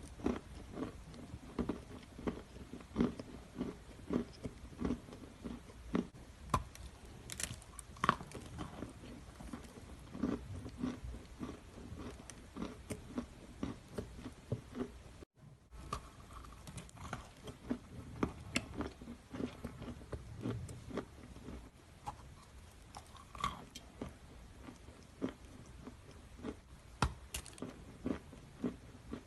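Close-up crunching and chewing of a pressed edible chalk cookie: many short, irregular crunches as pieces are bitten and chewed, with a brief break about halfway.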